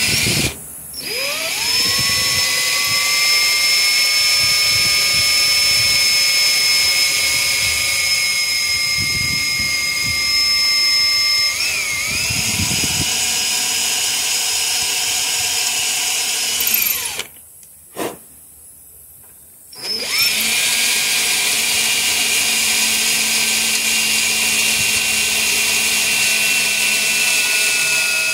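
Cordless drill with a small bit drilling a pilot hole into a rusted broken screw. The steady motor whine rises in pitch as it spins up, stops twice briefly (just after the start and for a couple of seconds about two-thirds through), then starts again.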